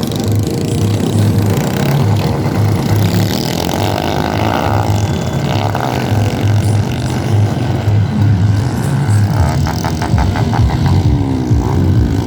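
Car sound system playing music at high volume, a pounding bass beat about twice a second that gets busier near the end.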